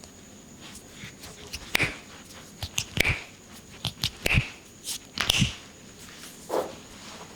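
Hands slapping and patting on skin during a head and back massage: about eight irregular sharp slaps over a few seconds, some with a dull thump.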